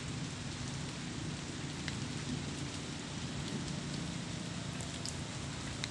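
Steady rain falling on tree foliage: an even hiss, with a few separate drops ticking, once at about two seconds in and again near the end.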